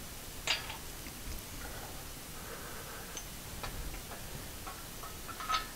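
Scattered light clicks and knocks as an 8-ton air/hydraulic ram is worked into its mount on a shop crane and lined up for its bolts, the sharpest about half a second in and a few more near the end.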